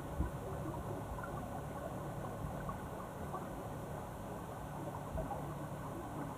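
Muffled underwater noise heard through an action camera's waterproof body: a steady low rumble with faint scattered ticks, and little high sound.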